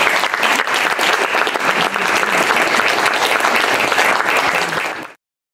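Audience applauding, a dense patter of many hands clapping that cuts off abruptly about five seconds in.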